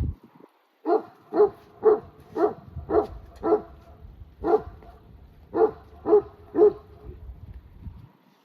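A dog barking, about ten sharp barks at roughly two a second, with a short pause midway.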